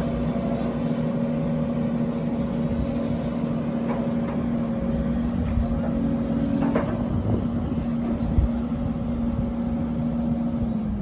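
Excavator's diesel engine running at a steady pitch, with a few short knocks from the machine. The hum drops away right at the end.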